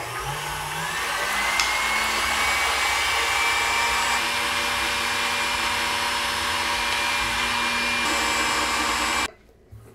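Stand mixer with a wire whisk beating egg whites toward stiff peaks. The motor comes up to speed with a rising whine in the first second, runs steadily, then switches off suddenly near the end.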